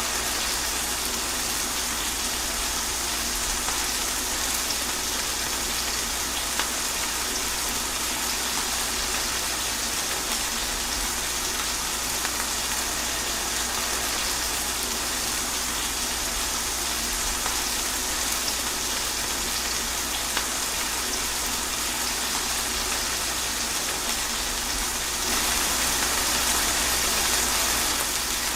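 Steady rain falling through trees, a dense even hiss of drops with water running, growing slightly louder near the end.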